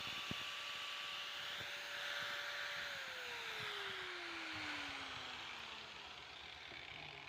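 Repaired electric hand grinder running with a steady whine, then switched off about three seconds in; the whine falls smoothly in pitch for about three seconds as the motor winds down. The grinder runs again after its repair.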